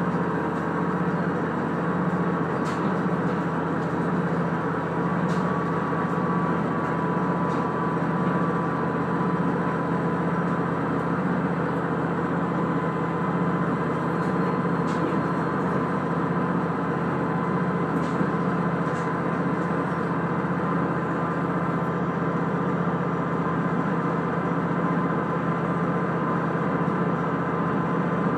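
Steady running noise of the Tango Aomatsu diesel railcar heard inside the cabin as it travels at an even pace: a constant drone with a thin whine, and a few faint ticks.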